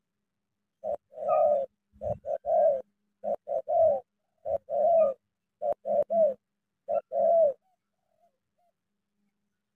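Spotted dove cooing: about six repeated phrases, each one or two short notes followed by a longer drawn-out coo. The calling stops about three-quarters of the way through.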